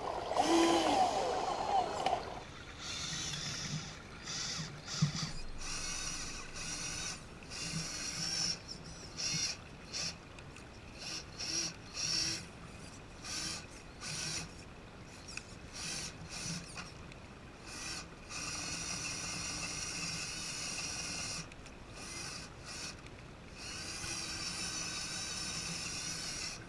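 Radio-controlled crawler truck's electric motor and gear drivetrain whining in short on-off bursts of throttle as it crawls through the stream, with two longer steady runs near the end. Splashing water is louder for the first two seconds.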